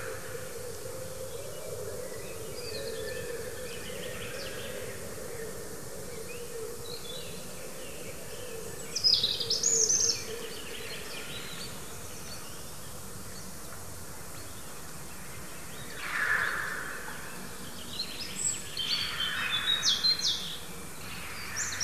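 Scary cries from someone's hunt near the nest: a short burst of high calls about nine seconds in, a harsher cry around sixteen seconds, then a rapid run of high calls near the end. A thin insect hum wavers through the first half.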